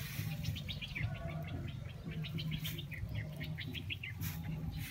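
Small birds chirping: a quick, irregular run of short, high chirps.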